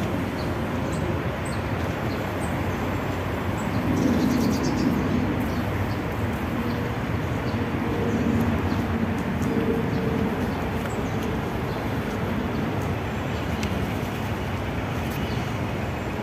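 Outdoor ambience: a steady rushing background noise with low cooing, typical of a pigeon, a few seconds in and again around the middle.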